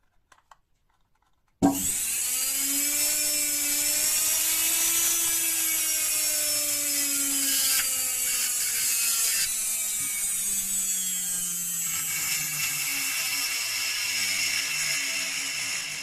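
Washing-machine universal (brushed commutator) motor switched straight onto 220 V mains with no speed regulator, starting suddenly about a second and a half in and running unloaded. It makes a loud whine over the hiss of the brushes, its pitch climbing for a few seconds and then slowly sagging. It cuts off just before the end.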